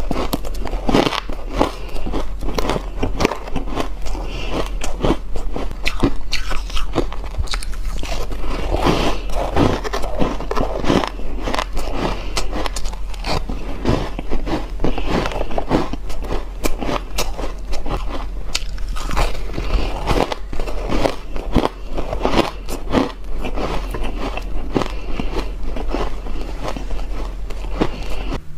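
Close-miked biting and chewing of frost-coated ice: a dense run of dry, crisp crunches and crackles.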